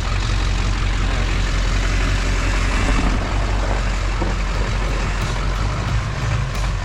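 Truck engine running steadily, with a low hum and an even rush of noise over it.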